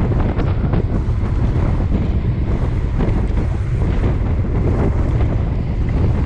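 Wind buffeting the microphone of a camera on a moving road bike, a loud steady rumble.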